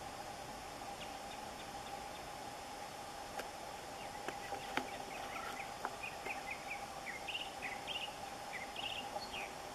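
Northern mockingbird singing a run of short, high chirpy phrases, some repeated, growing busier in the second half, with a few sharp clicks in the middle. A steady faint hum lies underneath.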